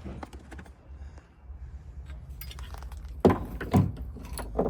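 Keys and small metal lock parts clinking as they are handled, ending in three sharp metallic knocks in the last second and a half.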